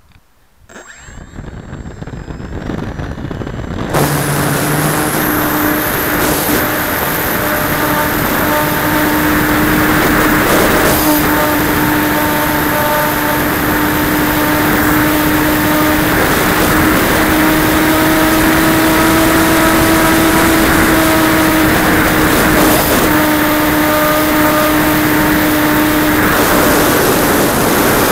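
Multiplex DogFighter RC plane's electric motor and propeller heard from an onboard camera, with heavy wind rush. The sound builds over the first few seconds, jumps to full throttle about four seconds in, and holds a steady hum whose pitch rises a little for a few seconds midway.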